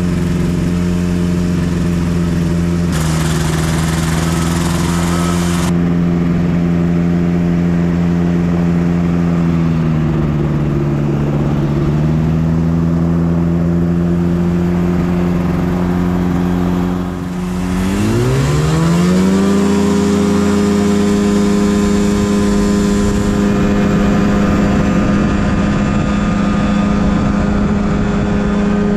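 Ultralight trike's engine and pusher propeller running steadily at low throttle, the pitch sagging and recovering around ten seconds in. A little past halfway the throttle is opened and the pitch rises quickly to a steady, higher full-power note for the takeoff roll.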